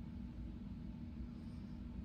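Steady low rumble with a constant low hum from a cruise ship under way.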